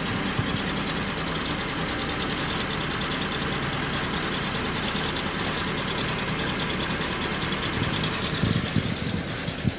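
Honda Civic FD engine idling with a steady knocking, which the mechanics trace to a worn bearing in the air-conditioning compressor's pulley. A few louder thumps come near the end.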